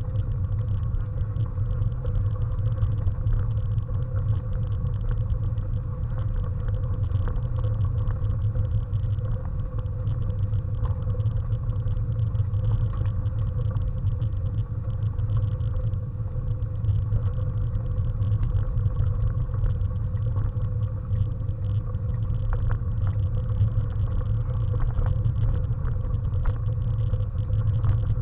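Steady low rumble of a bicycle rolling along a gravel path, with a light crackle of grit under the tyres and a faint steady hum.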